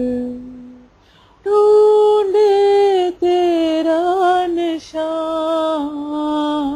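A woman singing a Hindi devotional song unaccompanied. A held note fades out within the first second, and after a short pause she sings three long, drawn-out phrases with small wavering ornaments in the pitch.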